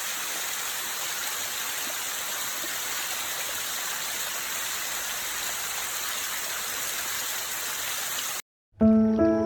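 Steady rushing water, an even hiss that cuts off abruptly near the end. Soft music with sustained tones starts just after.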